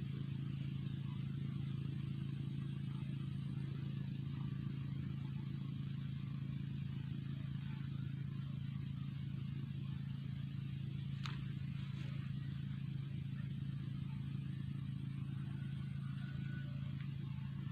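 Steady low mechanical hum under a faint even hiss, with two short clicks about eleven and twelve seconds in.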